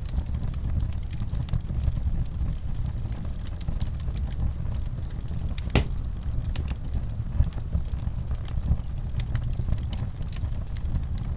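Wood fire burning in a fireplace: a steady low rumble of the flames with scattered sharp crackles and pops, one louder snap about halfway through.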